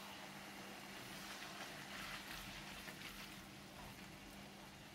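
Faint sizzling of noodles, meat and vegetables stir-frying in a wok, with soft scrapes of a silicone spatula stirring them, over a steady low hum.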